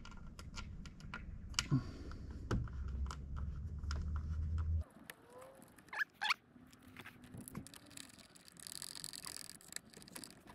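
Light, scattered clicks and taps of stainless bolts being fitted and hand-tightened into a sun-visor bracket. A low rumble of wind on the microphone runs under the first half and stops abruptly about halfway through.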